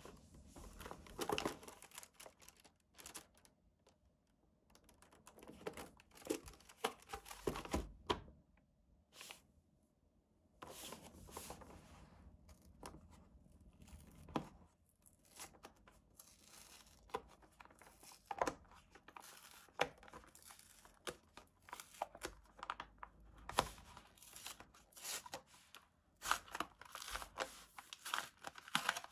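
Paper sleeve packaging of a Hobonichi Techo planner being handled and torn open by hand: irregular paper crinkling and rustling with sharp crackles and tearing, in uneven bursts with short pauses.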